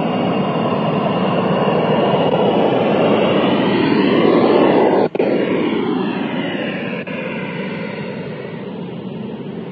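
Pink noise played through a car audio system while it is being equalized: a loud steady hiss with a sweeping, whooshing change in tone, briefly cutting out about five seconds in and gradually getting quieter towards the end.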